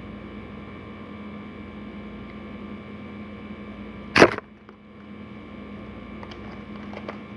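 Steady electrical hum, with one sharp knock or click about four seconds in.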